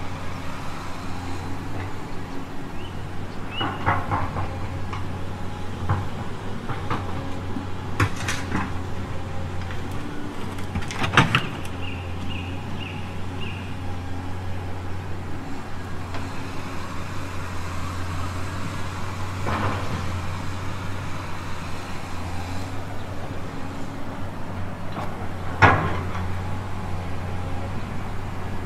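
Kabolite RC hydraulic excavator running with a steady low hum while its metal bucket digs into loose gravel, stones clattering and knocking against it now and then, loudest about 11 seconds in and near the end.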